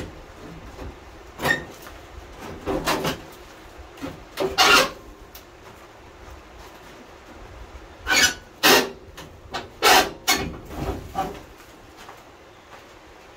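Sheet-metal radiator core support of a 1976 Chevy C10 scraping and rubbing against the truck's front end as it is pulled and rocked to work it loose. It comes as rough, irregular scrapes, a few spaced out early and a denser run of them from about eight to eleven seconds in.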